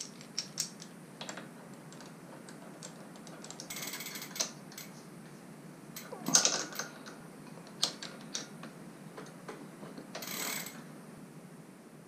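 Bicycle crank removal tool and left crank arm being worked by hand: scattered light metal clicks and clinks, with three short scraping rustles, the loudest about halfway through.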